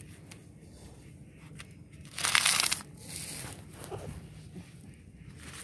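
A short crunching rustle about two seconds in, with a fainter one just after it, against a quiet background.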